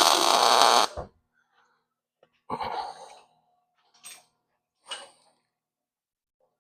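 MIG welder arc crackling in one short burst of just under a second, plug-welding a screw hole in the car's sheet steel, followed by a few faint knocks and scrapes.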